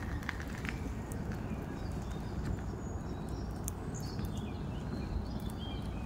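Outdoor ambience: a steady low rumble with scattered light clicks, and a few faint chirps near the middle.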